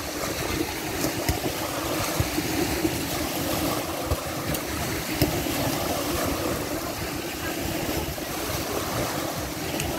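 Small waves breaking and washing over the sand at the water's edge, a steady noisy wash with an uneven low rumble underneath.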